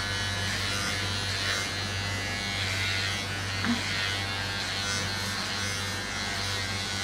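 Electric hair trimmer running with a steady buzz.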